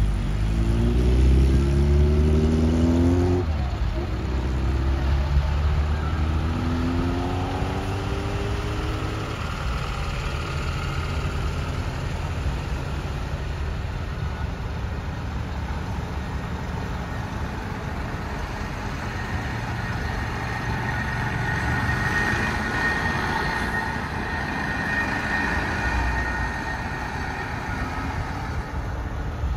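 Diesel trucks driving past and pulling away, one engine climbing in pitch through two gears in the first ten seconds, then steady engine and tyre noise.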